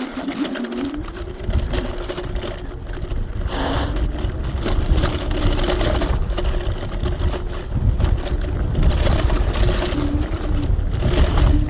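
TRBK-M2 electric hyperscooter's motor whining as it rides off-road, its pitch rising about a second in and then holding steady with small dips, over the low rumble and frequent knocks of tyres and suspension on rough ground.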